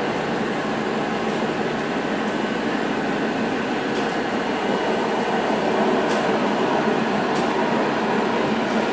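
Steady rumble and hiss of a Golden Pass Panoramic train running along the rails, heard from inside the carriage, swelling slightly about six seconds in, with a few faint clicks.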